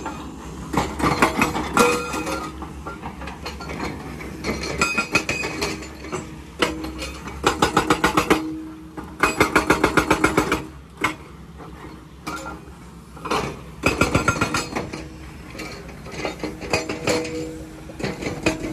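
Excavator-mounted hydraulic rock breaker hammering on rock in bursts of rapid blows, about eight a second, with short pauses between bursts. The excavator's diesel engine runs steadily underneath.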